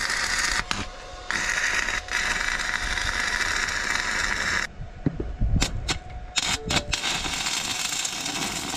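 Stick welder's arc crackling and hissing as steel under a truck trailer is welded, in stretches of a few seconds. About five seconds in the arc stops for a couple of seconds, leaving a few sharp clicks and knocks, then it strikes and crackles again near the end.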